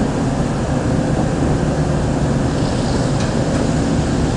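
Steady low rumble aboard a moving ship, with no single event standing out.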